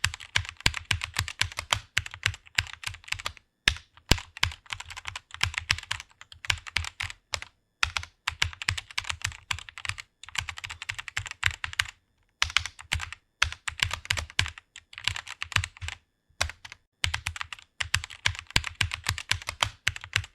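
Fast typing on a computer keyboard: rapid runs of key clicks with short pauses between bursts of words.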